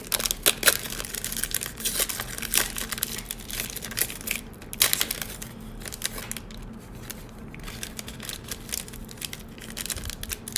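Wrapper of a trading card pack crinkling and tearing as it is worked open by hand, in many irregular crackles.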